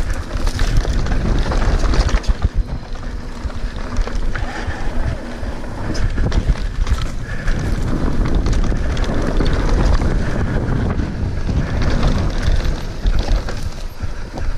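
Wind buffeting the microphone over the rattle of a mountain bike descending a dry dirt trail at speed, its tyres rumbling on the ground with frequent small knocks from bumps.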